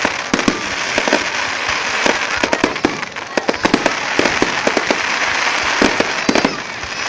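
A fireworks display going off: many irregular bangs and pops, several a second, over a constant crackling hiss.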